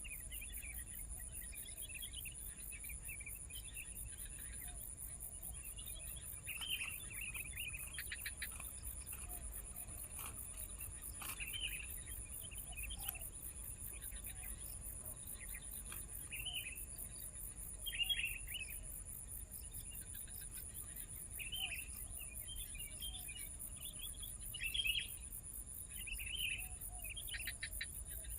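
Small birds chirping in short, scattered bursts every few seconds, over a steady high-pitched insect drone.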